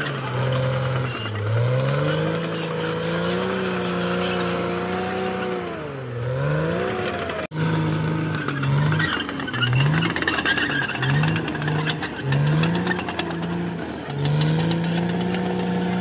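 Caterpillar D6R XL crawler bulldozer's diesel engine working under load, its pitch rising and falling as the engine lugs down and recovers, with a run of quick dips and recoveries in the middle.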